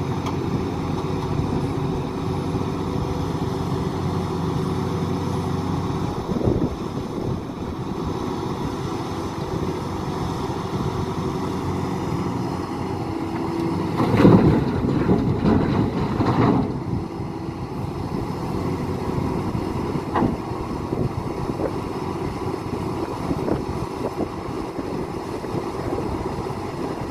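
Heavy diesel mining machinery running steadily: an excavator loading overburden into a tipper truck. About halfway through, a loud rough crash lasts about two seconds as a bucket load is dumped into the tipper's steel body. A few single knocks come before and after it.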